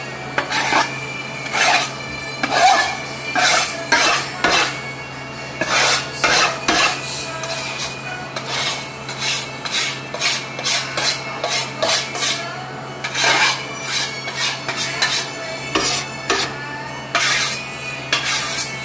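Steel trowel and a second metal blade scraping and slapping wet putty against each other and the table top, with a metallic scrape on each stroke. The strokes are quick and irregular, about one or two a second, as powdered putty is mixed with water.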